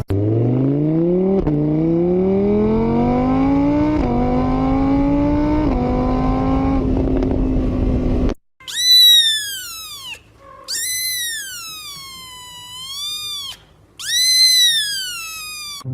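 A vehicle engine accelerating through the gears: its pitch climbs, drops at each shift about every two seconds, then holds steady before cutting off about eight seconds in. Three long high-pitched cries follow, each rising and falling.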